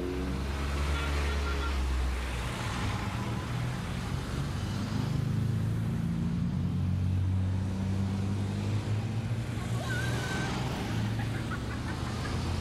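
Classic cars driving past one after another, their engines running over tyre and road noise.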